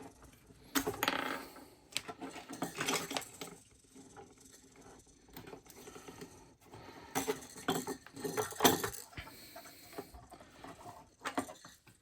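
Small plastic parts of a Blokees Cookie Monster snap-together figure clicking and clattering as they are handled, pulled off and pressed back together. The clicks come in irregular clusters, loudest about two-thirds of the way through.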